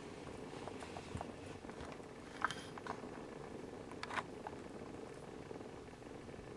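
Siamese cats purring faintly and steadily as the kittens nurse, with a few soft clicks about two and a half and four seconds in.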